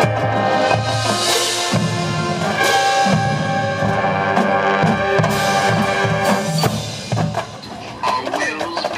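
Marching band playing: held brass chords over drums. The music turns softer near the end.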